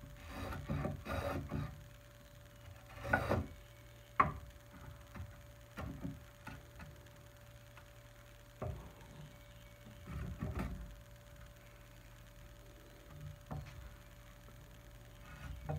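Lie-Nielsen 60-1/2 rabbeting block plane shaving a chamfer on a wedged tenon end: a few short bursts of scraping strokes, with sharp clicks and knocks of the plane against the wood between them.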